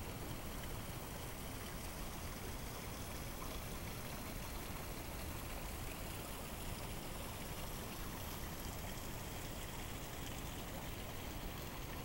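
Steady rush of a partly frozen river, its water running between shelf ice and floating slush ice.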